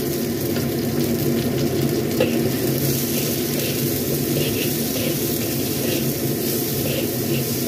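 Sliced green tomatoes and chillies sizzling in hot oil in a wok. A metal spatula stirs them, with short scrapes against the wok repeated from a few seconds in.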